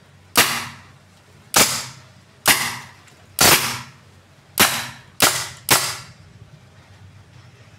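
Suppressed AirForce Condor PCP air rifle, set up as a semi-auto, firing seven shots in about five and a half seconds, each a sharp report with a short decaying tail, the last three coming faster.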